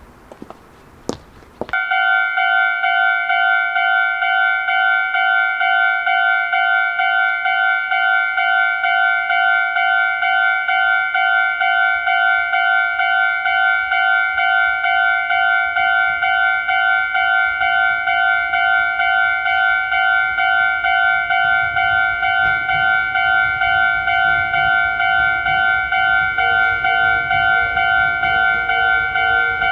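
Railway level-crossing warning bell, starting suddenly about two seconds in and ringing in an even, rapid repeat of the same two-pitch ding. From about two-thirds of the way through, the low rumble of an approaching train rises beneath it.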